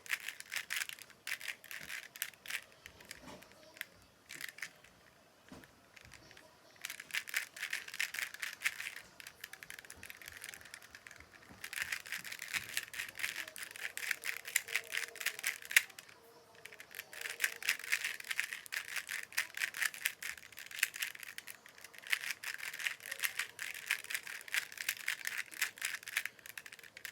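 Plastic Rubik's Cube being turned by hand mid-solve: a rapid clatter of clicks as the layers snap round. The clicks are sparse for the first few seconds, then come in long runs broken by short pauses.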